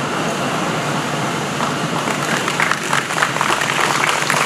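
Crowd applauding: a steady wash of clapping, with sharper nearby claps standing out more and more from about a second and a half in.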